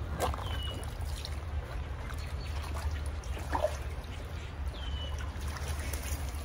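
Shallow stream water running steadily, with a few splashes as a hooked trout thrashes at the surface and is scooped into a landing net.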